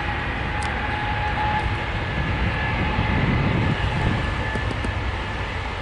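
Jet airliner's engines running on a distant runway: a steady rush of engine noise with a thin high whine on top.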